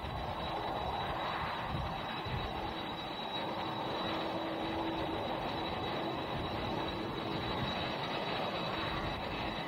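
Jet airliner's engines running, a steady rush of noise with a thin high whine.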